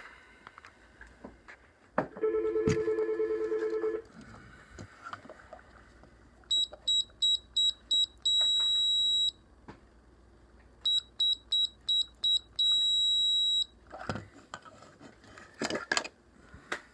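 LaGard electronic safe lock keypad beeping as a combination is entered: six short high beeps, one per key press, then one long beep as the code is accepted, done twice. Before that, a lower buzzing tone sounds for about two seconds, and clicks and handling noise follow near the end.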